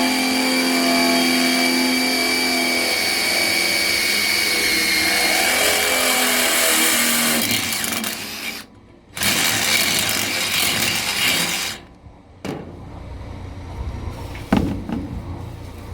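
Electric drill boring a hole through a metal beam: a long steady run of about eight seconds, a short stop, then a second run of a couple of seconds. After that it falls quieter, with a couple of sharp clicks.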